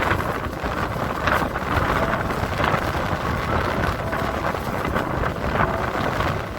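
Sea waves surging and washing in a steady rush, with wind buffeting the microphone; the rush swells a few times.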